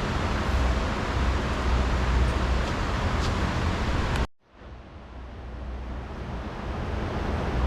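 Steady outdoor rumble and hiss, like wind and traffic noise on the microphone, that cuts out suddenly about four seconds in and then fades back up.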